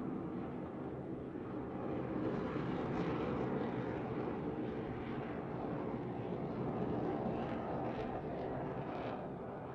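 Jet aircraft engine running steadily: a continuous rushing rumble, strongest in the low-mid range, with no change in pitch.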